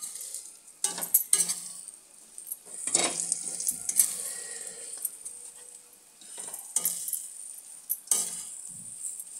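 A spoon scraping and knocking against a metal kadhai as a raw mango and green chilli pickle is stirred, a few strokes at a time with pauses between, over a steady sizzle of the spiced mixture frying in oil.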